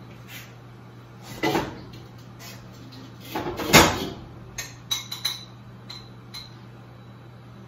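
Kitchen handling sounds of a metal spoon against a pot and a ceramic baking dish while sauce is spooned in. Two scraping knocks come first, then several light clinks that ring briefly, over a faint steady hum.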